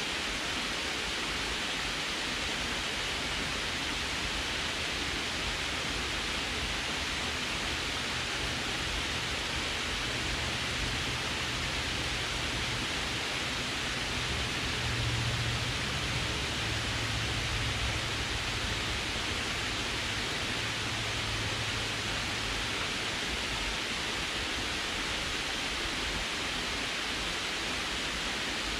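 Water pouring over a low concrete dam spillway into the pool below: a steady, even rushing. A faint low hum swells and fades away in the middle.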